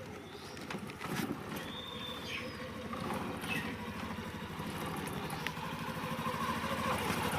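Hero Splendor Plus BS6 motorcycle's single-cylinder engine running, getting gradually louder, as the rear drum brake is applied. The brake, whose water-glazed shoes have just been sanded clean, makes no loud 'shu shu' noise.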